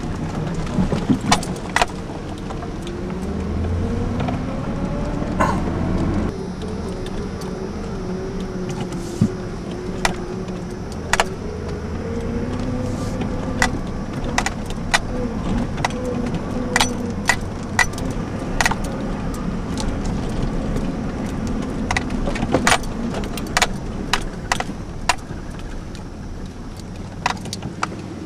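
A 2002 GMC Sonoma ZR2 pickup's 4.3-litre V6 running over a rough gravel and dirt trail, heard from inside the cab. The engine note rises and eases off with the terrain. Frequent sharp knocks and rattles come from the truck jolting over bumps and loose stones.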